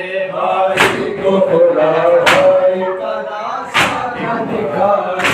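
A group of mourners striking their chests with their hands in unison (matam): four sharp slaps about a second and a half apart, over men's voices chanting a noha in long held notes.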